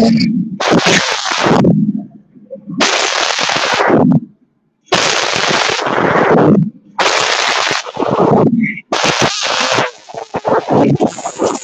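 A large group of children reciting a poem in unison, heard as harsh, distorted bursts of noise about a second long with short breaks between them.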